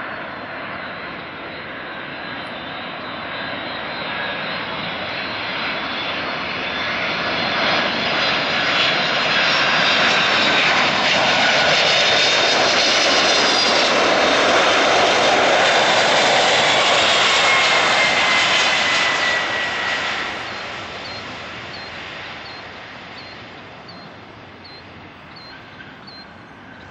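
Boeing 767-300ER airliner on final approach passing close overhead: the jet engine noise swells, holds loud for about ten seconds, then fades away. A falling whine can be heard as it goes past.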